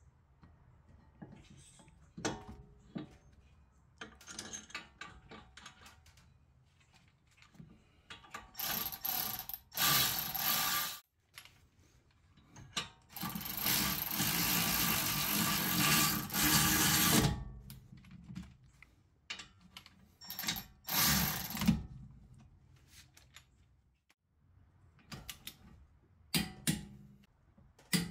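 Ratchet wrench running in and tightening the 10mm hex bolts that hold a Brembo six-piston brake caliper to its bracket. Scattered clicks and metal handling sounds come first, then three loud stretches of rapid ratcheting: the longest runs about four seconds, near the middle.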